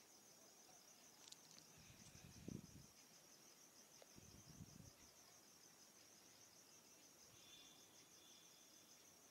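Near silence, with a faint steady high-pitched cricket trill and two soft low rumbles about two and four seconds in.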